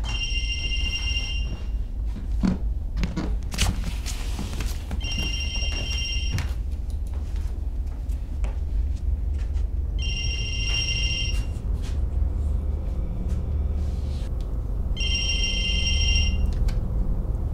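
Telephone ringing: four electronic rings, each about a second and a half long, coming every five seconds, over a low steady hum. A few knocks come between the first two rings.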